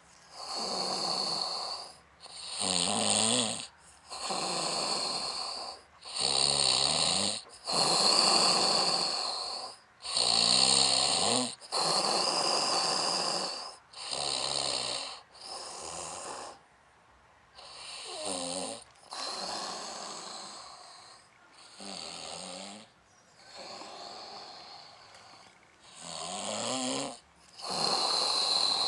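A man snoring in his sleep: a rattling snore on each breath, in and out, every second or two. It is softer for several breaths past the middle.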